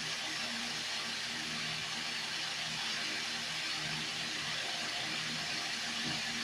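Steady hiss of a home aquarium's aeration and filter, with a faint low hum that comes and goes.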